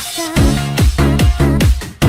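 Electronic dance music with a steady, fast, pulsing beat.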